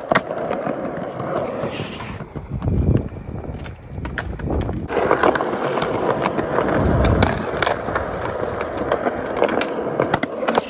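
Skateboard wheels rolling over concrete slabs, with sharp clacks as the board is popped and lands during flatground flip tricks.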